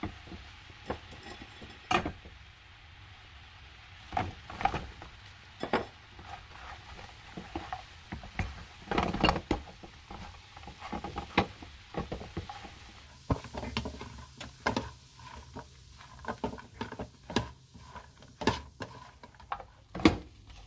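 Utensil knocking, clinking and scraping against a cooking pan in irregular strokes as food is stirred and tossed.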